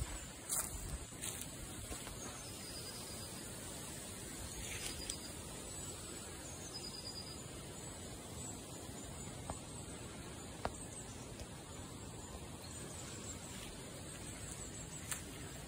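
Quiet woodland ambience: a steady faint hiss of outdoor background noise, broken by a few isolated soft clicks.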